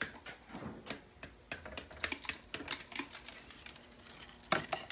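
Scissors tapping again and again against a hard Likit lick treat to knock out what clogs its centre hole: a quick, irregular run of light clicks, with a sharper knock a little before the end.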